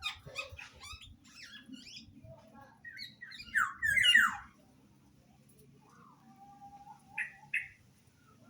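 Songbirds calling: a run of quick chirps and sharp notes, a loud burst of harsh falling calls about three and a half to four and a half seconds in, then a few short whistled notes near the end.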